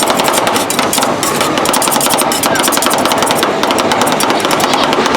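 Metal spatulas chopping fruit on the frozen steel plate of a rolled ice cream pan: rapid, continuous clattering strikes.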